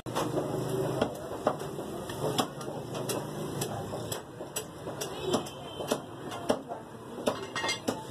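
A heavy meat cleaver chopping through a leg of mutton on a wooden butcher's block: repeated sharp chops, a little under two a second and unevenly spaced.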